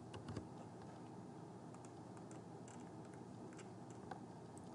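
Faint computer keyboard keystrokes and mouse clicks: a quick run of key taps near the start, then scattered single clicks.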